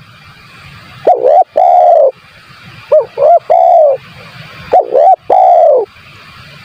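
Spotted dove (tekukur) cooing: three phrases about two seconds apart, each a couple of short quick coos followed by one longer drawn-out coo.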